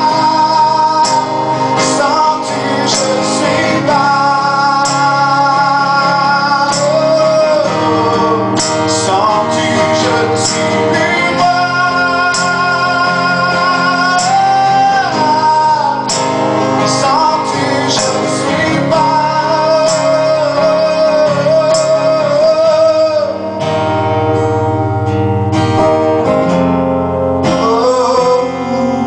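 Live music: a man singing long, wavering held notes that slide between pitches, over guitar accompaniment.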